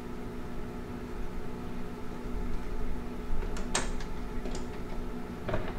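A steady mechanical hum over a low rumble, with a few sharp clicks and a short clatter in the second half.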